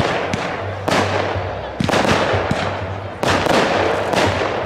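Aerial fireworks bursting overhead: a quick string of sharp bangs, roughly one every half second to a second, over a steady crackle of sparks.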